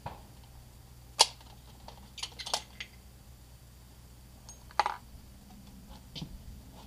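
Clicks and knocks of a bolt-action rifle being handled on a shooting bench: one sharp click about a second in, a quick run of clicks a little later and another sharp click near the middle.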